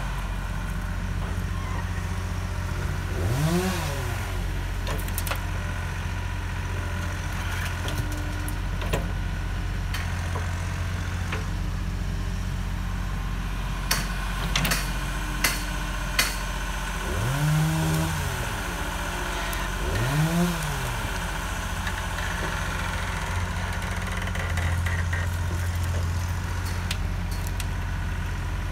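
Schaeff wheeled excavator's diesel engine running steadily while it digs and loads, briefly revving up and falling back three times as the hydraulics take load. A few sharp knocks come near the middle.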